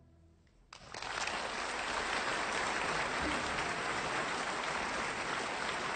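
Concert audience bursting into applause about a second in, after a brief hush following the last note of the string piece; the clapping then goes on steadily.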